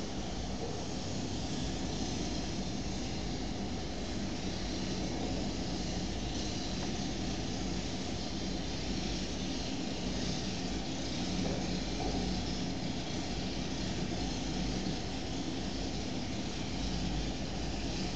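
Steady background noise: a low hum with a constant hiss, unchanging throughout.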